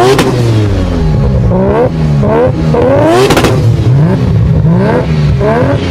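Mazda RX-7's rotary engine revving, its pitch rising and falling several times in quick sweeps.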